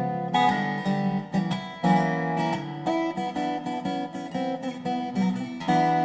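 Background music led by a strummed acoustic guitar, with a steady rhythm of struck chords.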